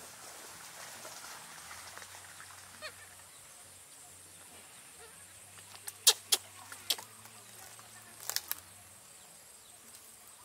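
Short, sharp plastic clicks as a baby feeding bottle and its snap-on yellow handles are handled: two about six seconds in, another just before seven, and a quick cluster of three a little after eight.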